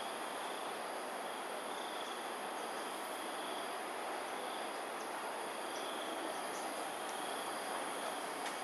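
Insects chirring in thin, steady high tones, one of them swelling and fading every second or so, over a constant broad background hiss.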